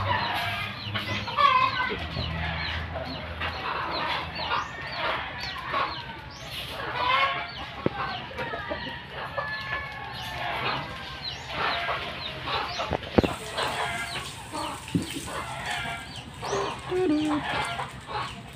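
Domestic chickens clucking over and over, with one sharp knock about thirteen seconds in.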